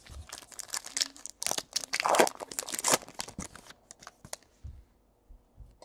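Wrapper of a trading-card pack being torn open and crinkled: a dense run of crackling and tearing for about three and a half seconds, then a few light ticks before it goes quiet.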